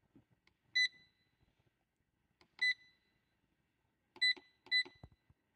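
Hansang digital wall clock beeping as its setting buttons are pressed: four short, high beeps, each with a faint button click, the last two close together. Each beep confirms a press while the time is being set.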